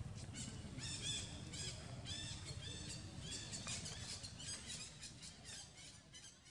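Short, high-pitched chirping or squeaking animal calls, two or three a second, over a low steady rumble, thinning out and fading near the end.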